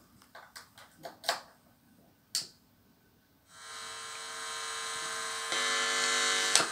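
Guitar cable jack clicking as it is plugged into a Marshall MG10 practice amplifier, then the amp buzzing with a steady mains hum from about halfway, which steps up louder near the end as the controls are worked.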